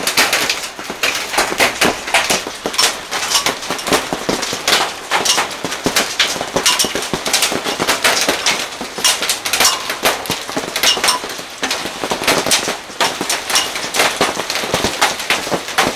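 Heavy hail falling, hailstones striking paving stones and other hard surfaces as a dense, irregular clatter of sharp cracks and clicks, a few of them with a brief ringing ping.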